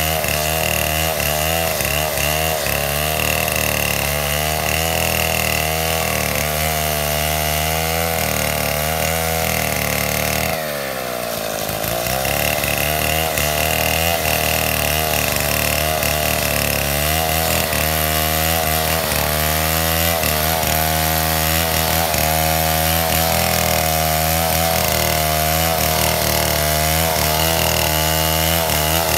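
STIHL 070 two-stroke chainsaw running hard, sawing lengthwise along a coconut palm trunk. About ten seconds in, the engine note drops briefly and then climbs back up to full speed.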